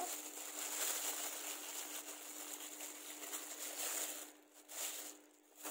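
A clear plastic bag crinkling and rustling as a lump of soap dough is pulled out of it, dense for about four seconds, then two short rustles near the end.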